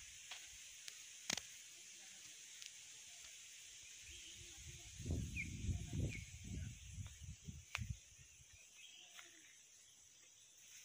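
Faint rural outdoor ambience: a steady high hiss, a couple of short bird chirps about five and six seconds in, and low rumbling bumps on the microphone around the middle, with a few soft clicks.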